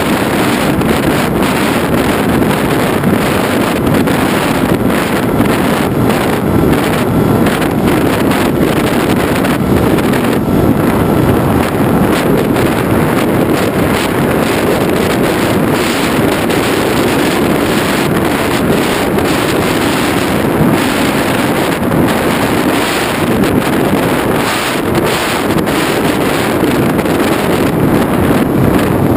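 Loud, steady wind buffeting on a GoPro camera riding on the nose of a Skysurfer RC foam plane in flight.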